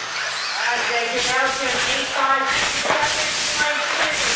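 Electric 2WD RC buggies racing past on an indoor track: a hissing rush of tyres and motors that swells several times as cars go by close, with whining pitches rising and falling as they speed up and slow down.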